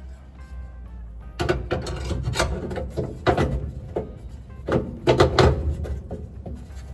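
Irregular knocks and clatter of a shifter cover plate being handled and fitted into place over a dash-mounted column shifter, with the loudest knocks about five seconds in.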